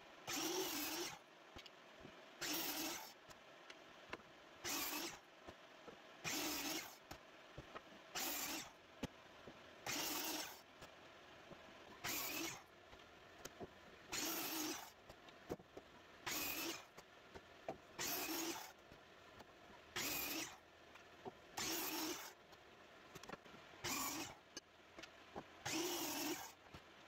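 Hercules sliding compound miter saw making a run of quick bevel cuts through a 2x6 board, one short cut about every two seconds. Light clicks and knocks come between the cuts as the board is shifted and flipped.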